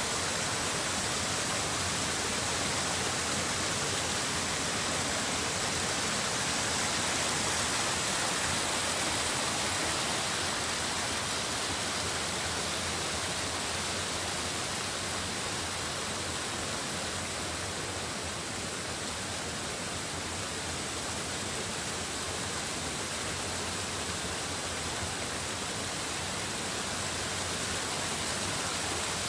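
Mountain stream rushing over boulders in small cascades: a steady, even rush of water.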